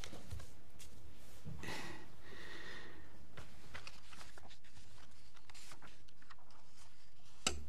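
Quiet courtroom room tone with faint rustling of papers being leafed through and small handling clicks. A single soft knock comes near the end.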